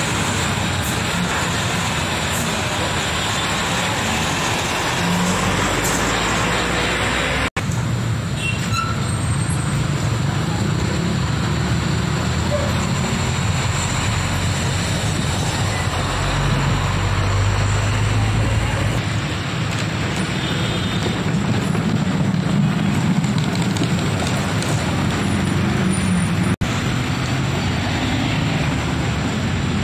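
Heavy diesel trucks driving past in city traffic: a Sinotruk HOWO cement mixer, then a Shacman tractor unit pulling a container trailer, their engines rumbling steadily under tyre and traffic noise. The sound drops out briefly twice where the recording is cut.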